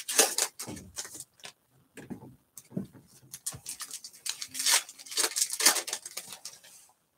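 Foil wrapper of a trading card pack crinkling as it is torn open and the cards are slid out, in short irregular bursts with brief pauses between them.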